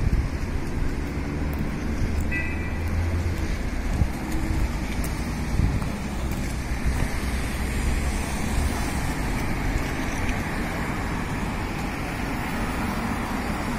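City street traffic: cars driving past with a steady low rumble of engines and tyres on the road, swelling as vehicles pass.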